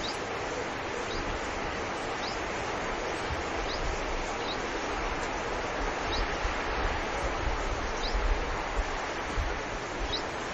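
Steady outdoor rushing noise with wind rumbling on the microphone, and a small bird giving a short high chirp about once a second.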